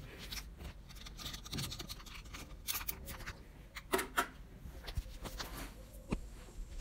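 Faint scattered rustles and light clicks of handling and movement, with a slightly louder cluster about four seconds in.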